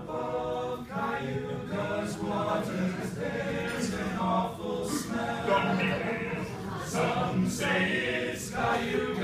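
All-male a cappella group singing in close harmony, a medley of college fight songs, with a sustained low bass note under the melody.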